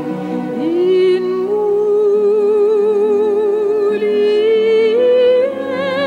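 A singer holding a long note with wide vibrato over sustained instrumental accompaniment, sliding up into it about half a second in and stepping up to a higher note about five seconds in.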